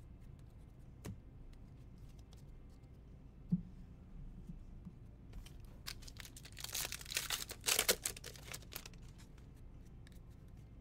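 A trading-card pack wrapper being torn open and crinkled: a burst of crackling through most of the second half, after a faint click and a light knock earlier on.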